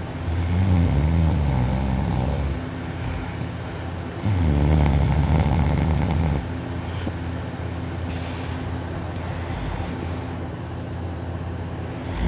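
A young man asleep on his back snoring loudly: two long snores of about two seconds each, some four seconds apart, then a quieter stretch of breathing of about six seconds.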